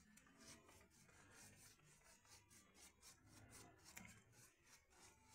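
A paintbrush rubbing along wooden louvered panels in quick, even strokes, about four a second, faintly.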